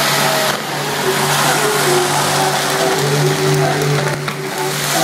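Loud steady hiss of fountain fireworks spraying sparks alongside water jets, with music of long held notes playing through it.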